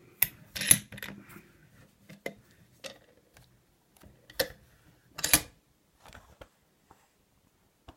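Irregular sharp metallic clicks and knocks, a dozen or so with quiet gaps between, the loudest about a second in and about five seconds in: a car lock and small metal tools being handled and set in a bench vise.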